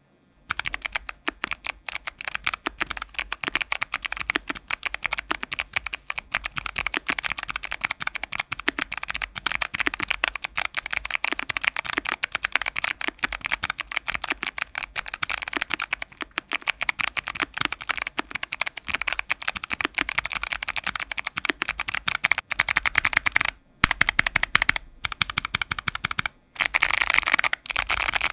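Mechanical keyboard with Kailh Box Jade clicky switches being typed on steadily: a fast, continuous stream of sharp clicks. It breaks off briefly twice near the end.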